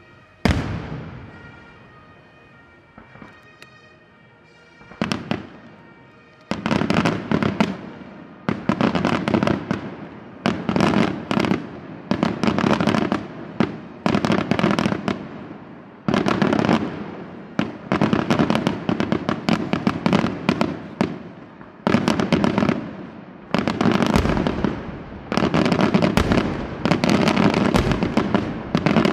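Aerial firework shells exploding: one sharp burst right at the start, then after about six seconds a rapid, continuous barrage of loud bursts in clusters about a second long.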